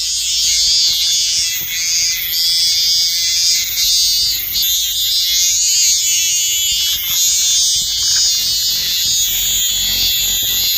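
Loud chorus of calling animals: a dense, high-pitched buzzing trill that pulses without pause.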